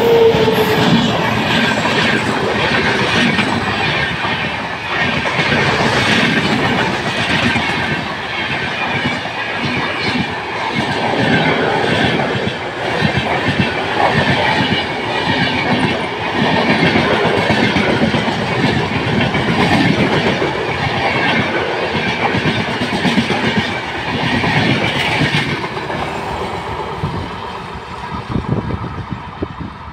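WAP-7 electric locomotive and its passenger coaches passing close at speed: steady rolling rumble with a rhythmic clatter of wheels over rail joints. A steady tone dies away about half a second in, and the sound fades near the end as the train recedes.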